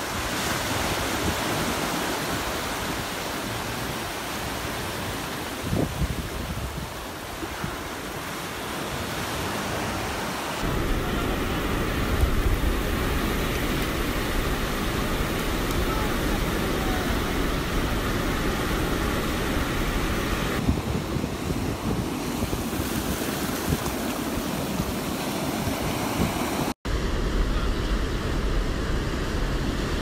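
Ocean surf breaking and washing up a sandy beach, with wind buffeting the microphone. The sound shifts abruptly a couple of times and drops out for an instant near the end.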